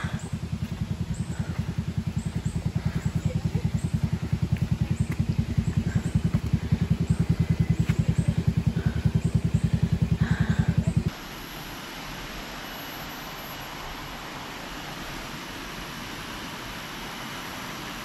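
Vehicle engine running at low revs with a fast, even pulsing beat that grows louder, as it labours up a steep hill. About eleven seconds in it cuts off abruptly, leaving a steady outdoor hiss.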